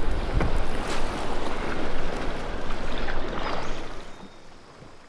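Rushing water and wind buffeting the microphone, a dense hiss with a low rumble, that falls away sharply about four seconds in.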